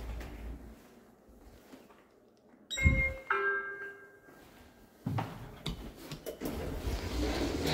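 Schindler 3300 lift's electronic two-tone chime, a short ding-dong about three seconds in, beginning with a light knock. From about five seconds in a steady mechanical noise from the lift follows.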